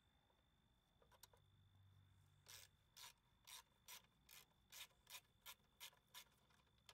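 A hand ratchet wrench working a bolt, its pawl rasping on each back-swing: about ten faint strokes, two to three a second, starting a couple of seconds in.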